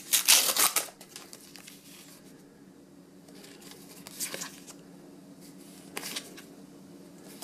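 Paper sticker booster packet torn open with a loud crinkling rip in the first second. The stickers are then handled and flipped through, with short paper rustles about four and six seconds in.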